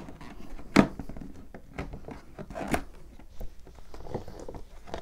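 Cardboard box being handled and its flaps opened: rustling and scraping of cardboard, with two sharper knocks, about a second in and near three seconds in.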